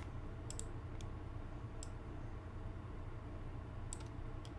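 A handful of sharp computer mouse and keyboard clicks, one pair about half a second in, one near two seconds and a quick pair near the end, over a steady low electrical hum on the microphone.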